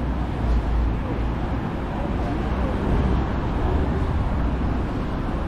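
City street ambience: passing road traffic with a steady low rumble, and faint voices of passers-by.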